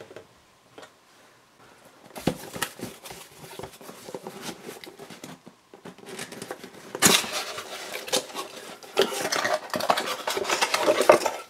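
A plain white cardboard box being handled and opened by hand: cardboard rubbing, sliding and knocking against the table, with irregular clicks and scrapes. It is mostly quiet for the first couple of seconds, then busier, with the loudest handling near the end.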